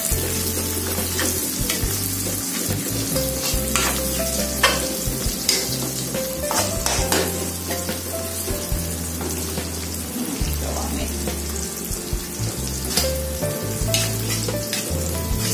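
Sliced aromatics and petai beans sizzling in hot oil in a wok, being sautéed until wilted, with a steady hiss. A metal spatula stirs them, clicking and scraping against the pan every few seconds.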